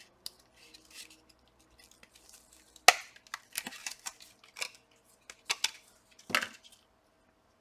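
Small sharp clicks, taps and knocks of hands and tools working on the opened laptop's internals, the loudest a single sharp click about three seconds in, followed by several more irregular clicks.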